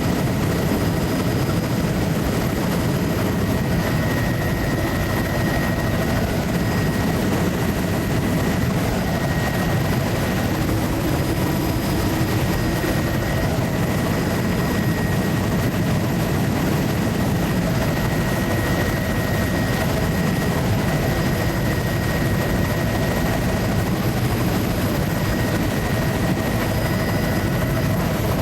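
Steady, unbroken engine and airscrew noise of a low-flying survey aircraft in cruise, heard from inside the cabin, with a faint steady whine running through it.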